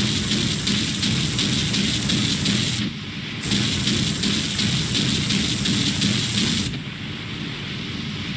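Rapid automatic gunfire from a warship's short-range anti-aircraft guns firing a practice shoot: a dense, continuous rattle of shots that breaks off briefly about three seconds in and grows quieter near the end.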